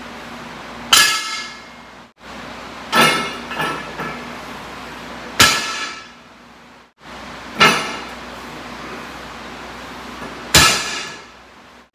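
Loaded barbell set down on a wooden lifting platform during deadlift reps: five sharp clangs as the plates hit the floor, each ringing briefly, about every two to three seconds.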